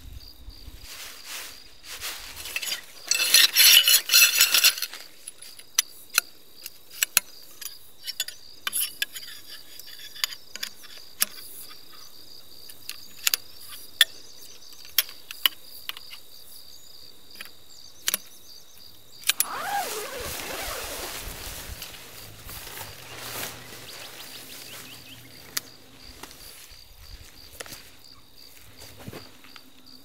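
Tent being pitched: a loud burst of rustling fabric a few seconds in, then a run of sharp clicks as the tent pole is handled, and more rustling and handling noise in the second half. A steady high-pitched insect trill runs underneath throughout.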